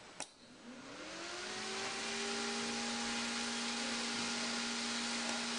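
A click, then a small battery-powered fan spinning up over about a second and a half and running steadily: an even motor whine over the rush of air from the blades.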